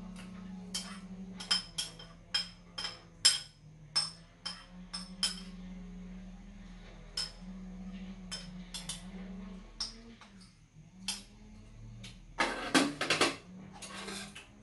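Metal spoons and chopsticks clinking and scraping against stainless steel bowls and a steel tray while eating, in irregular sharp taps with a quick flurry of clinks near the end. A low steady hum lies underneath.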